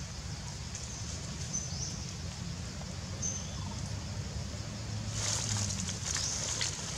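A macaque moving through undergrowth and leaf litter, with a rustle of leaves and twigs about five seconds in. Under it runs a steady low rumble, with a few short high bird chirps.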